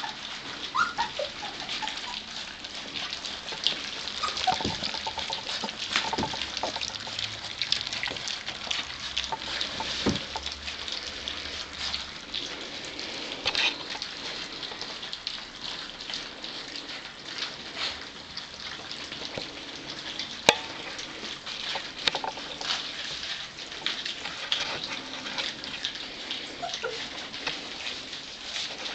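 A litter of four-week-old Gordon setter puppies lapping and smacking at their food together, a dense, continuous wet crackle, with a few brief squeaks and one sharp click about two-thirds of the way through.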